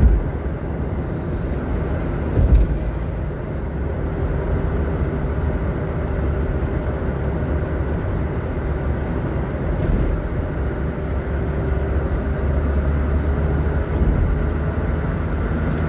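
Steady road and engine rumble inside a moving car, with a single thump about two and a half seconds in.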